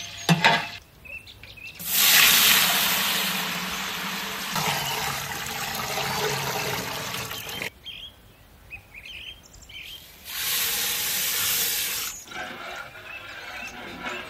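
Water sloshing and swirling in a large aluminium pot as it is stirred with a long steel ladle, in two long spells, after a few knocks at the start. Birds chirp in the quieter stretch between.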